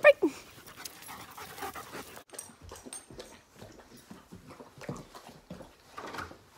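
German Shepherds panting, with a brief loud falling call right at the start. About two seconds in the sound cuts to a room with scattered light taps and steps on a wooden floor as the dogs move about.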